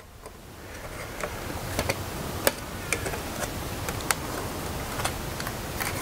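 Scattered light clicks and taps from plastic brush-cutter guard parts and a metal cutting blade being handled over cardboard packaging, irregularly spaced, over a steady background hiss.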